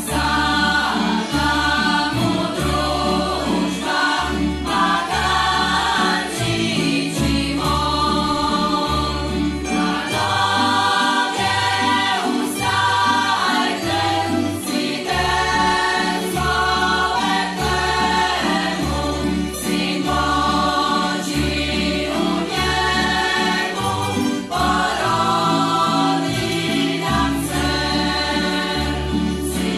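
Church choir singing a song in parts, accompanied by a tamburica ensemble of plucked strings with a steady bass line.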